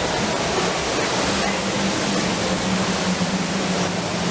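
Steady rushing noise of falling water, with a low steady hum joining about a second in.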